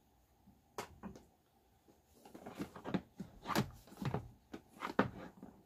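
Plastic disc golf discs knocking and scraping against each other as one is slid into the disc compartment of a backpack bag and another is pulled out: a string of short clacks and rustles, most of them in the second half.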